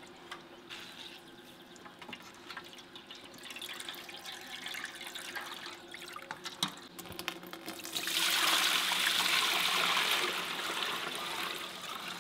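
Whey trickling and dripping from a cloth bag of fresh cheese curds into a metal colander. About eight seconds in, a louder steady pour of whey splashing into a pot takes over for a few seconds, then eases off.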